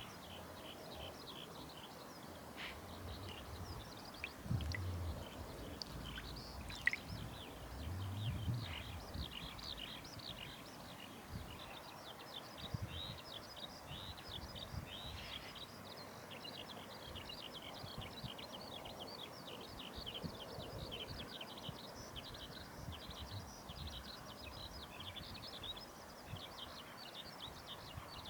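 Outdoor ambience with small birds chirping rapidly and continuously, plus a few low thumps and one sharp click in the first third.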